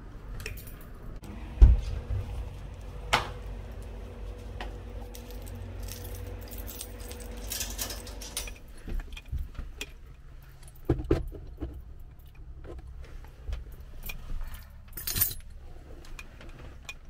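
Keys jangling, with a padlock being worked on a stainless-steel gate: scattered metallic clicks and knocks, a few of them sharper and louder.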